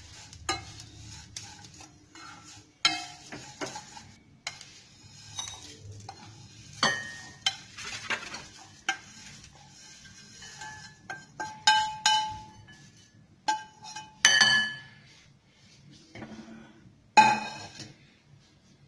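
A spoon scraping and knocking against a stainless steel pan while the dry roasted oats-and-poha mixture is stirred and tipped out into a serving bowl: irregular clattering knocks, several with a short metallic ring, the loudest clang near the end.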